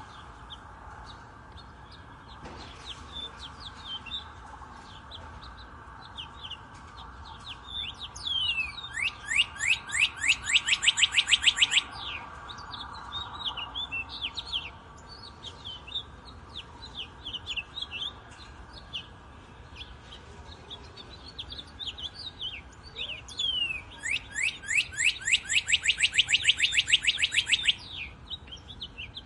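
Wild birds chirping, with two loud songs of rapid repeated notes quickening into a trill, each about three seconds long: one about a third of the way in and one near the end. The songs sit over a faint steady background.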